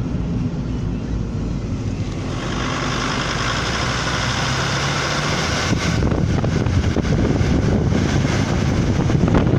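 Vehicle engine and tyre noise heard from a 4x4 driving along a country lane. About two seconds in, a steady rush of wind over the microphone joins it and stays loud.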